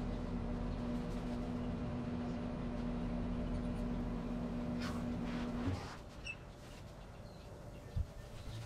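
A steady mechanical hum with a low pitched drone cuts off abruptly a little over halfway through, leaving a quieter outdoor background with a few faint high chirps and a single soft knock near the end.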